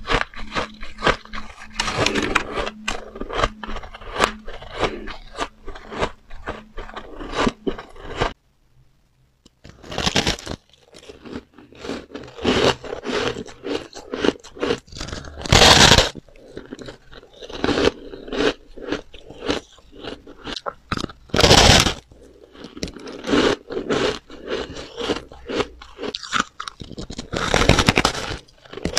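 Close-miked crunching and chewing of soft shaved ice: dense crisp crackling as the frozen slab is bitten and chewed, with a few louder bites breaking off chunks. A short silent break comes about eight seconds in.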